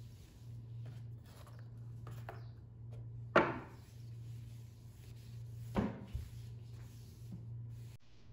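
A hand rubbing and sweeping across a desktop, with two sharp knocks on the desk, a little over three seconds in and again just before six seconds, over a steady low hum.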